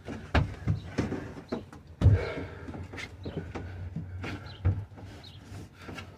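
Thin beadboard wall panel being worked into place inside a small camper, knocking and bumping against the wooden framing in irregular thumps; the loudest thump is about two seconds in.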